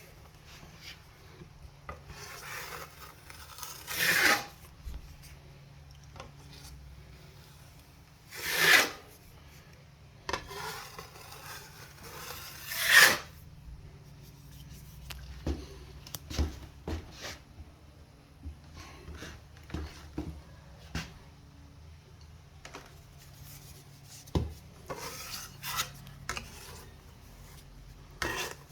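Hand strokes scraping and rubbing across a joint-compound patch on drywall, irregular and uneven, with three louder strokes in the first half and a single sharp knock later on. A faint steady low hum runs underneath.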